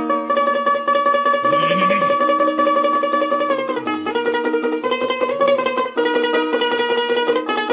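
Dotara, the Bengali long-necked plucked folk lute, playing a solo melody with rapid repeated plucking. The melody moves to new notes about halfway through.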